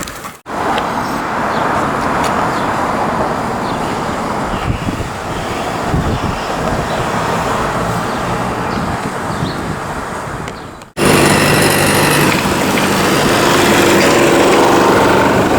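Steady city street traffic noise. After a cut about eleven seconds in, it gives way to a louder subway train running with a steady hum.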